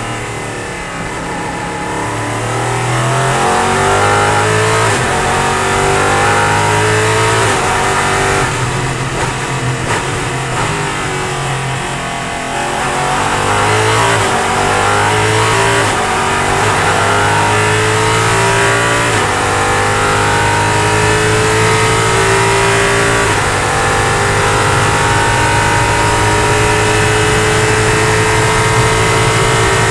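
Ligier LMP3 race car's Nissan 5.0-litre V8, heard from inside the cockpit, revving up and down through slow infield corners, then accelerating hard through several upshifts and holding high revs at speed on the banking.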